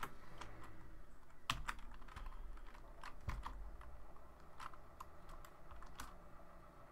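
Faint computer keyboard typing: separate keystrokes at an uneven pace with short pauses between them.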